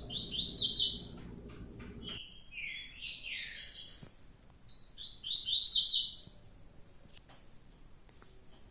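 Caged birds chirping: two loud, quick runs of high, falling notes, one at the start and another about five seconds in, with lower sweeping calls between them.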